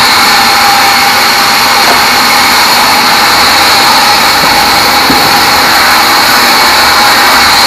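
Band sawmill running and sawing a teak log, a loud steady machine noise with a high whine.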